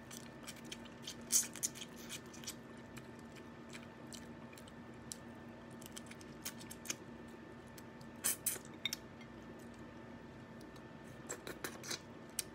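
Eating sounds of crab cooked in coconut milk being eaten by hand: scattered faint wet clicks and smacks of biting, chewing and picking at the shell. They come about a second and a half in, around eight seconds in, and several times near the end, over a faint steady hum.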